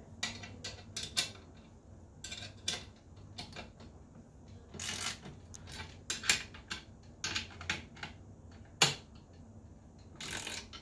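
Hand ratchet clicking in short irregular spurts, with metal clinks of socket and nut, as a bolt on a steel rotisserie bracket is tightened down.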